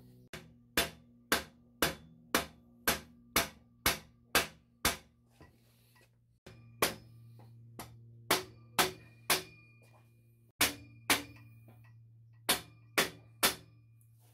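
Repeated blows knocking stainless 4-into-1 header pipes forward onto a Honda CB750's exhaust ports through a wooden block. The blows come in runs of about two a second, with short pauses, and many leave a brief ring behind them.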